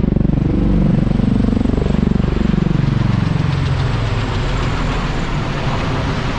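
Two V-22 Osprey tiltrotors passing low overhead, their large proprotors making a loud pulsing drone whose pitch falls as they go by. It eases off after about three seconds.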